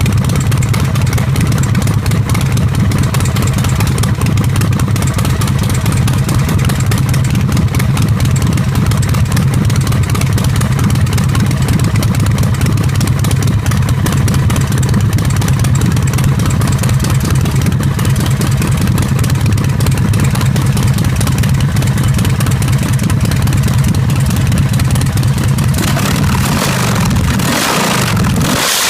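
Custom 2540cc (155 cubic inch) V-twin bobber engine idling steadily with a deep, loud note through an open titanium exhaust. Near the end the throttle is blipped, the pitch rising and falling a couple of times.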